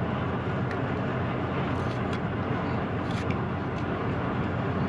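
Steady road and wind noise inside a car cabin, with a few faint ticks of fingernails picking at plastic packaging.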